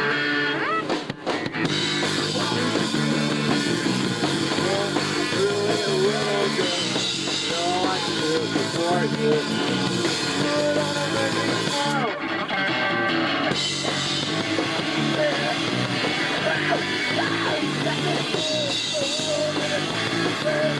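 Live punk rock band playing loudly: electric guitar, bass and drum kit, with a short break in the sound about a second in.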